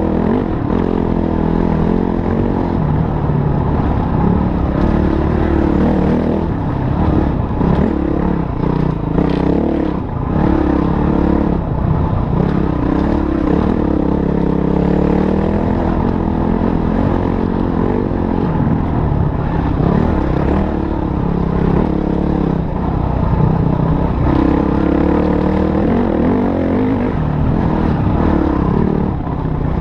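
Motorcycle engine running continuously, its pitch rising and falling again and again as the throttle opens and closes.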